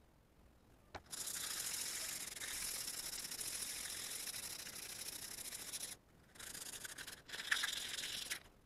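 Hand sanding of an old flatiron's metal soleplate: a steady scratchy rubbing that starts about a second in, stops briefly about six seconds in, then carries on.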